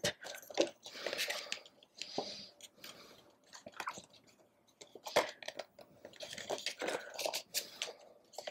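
Stiff photo postcards and a cardboard box being handled: irregular paper slides, rustles and light taps of card.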